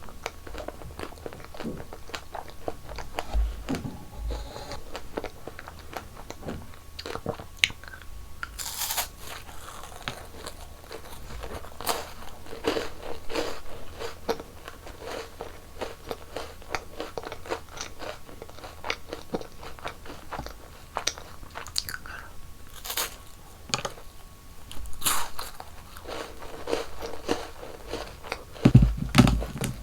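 Close-miked eating sounds: a person biting and chewing sweets, many small clicks and smacks with a few louder sharp bites. There are several heavy low thuds near the end.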